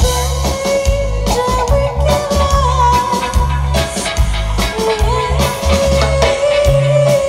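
Live reggae band playing: a heavy, pulsing bass line and drums under a female singer's held, sliding melody.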